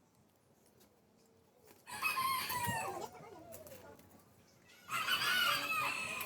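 A rooster crowing twice: one long call about two seconds in and another about five seconds in, each with a gliding pitch.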